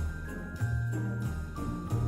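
Christmas-style background music with jingle bells shaking over a steady bass line and held melody notes.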